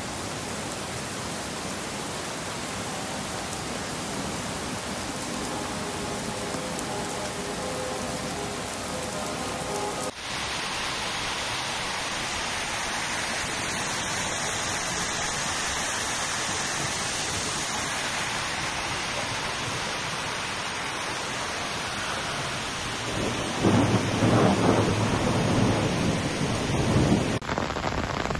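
Heavy rain pouring down during a thunderstorm, a steady hiss. About 24 seconds in there is a louder, deeper rumble of thunder lasting a few seconds, and the sound changes abruptly twice where the recordings are cut together.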